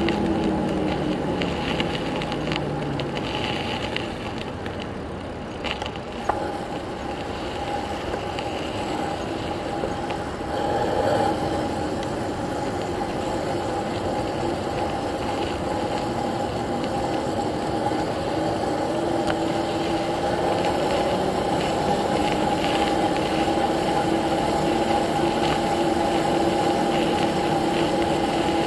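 Razor 750 W electric bike's motor whining while riding, its pitch falling over the first few seconds as it slows, then holding steady and slowly rising again, over a steady rush of tyre and air noise.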